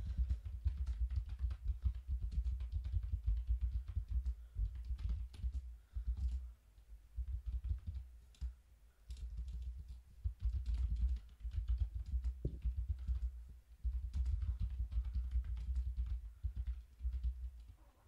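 Typing on a computer keyboard: quick runs of key clicks with soft low thuds, in bursts broken by short pauses.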